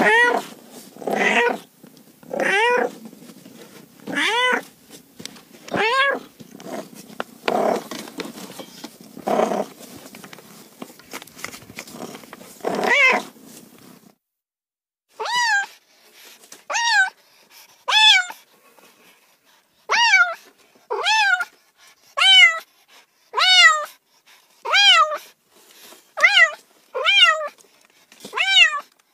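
Domestic cats meowing over and over, one call every second or so. About halfway through the recording changes to a cleaner, steady series of short meows.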